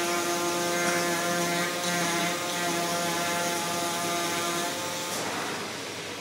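Flatbed CNC digital cutting table running as its tool head cuts across the board: a steady machine whine made of several tones. About five seconds in the tones stop and the sound eases off.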